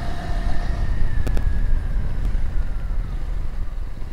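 Motorcycle riding along with its engine running, mostly buried under steady wind rush on the microphone, with a couple of faint knocks from the rough road.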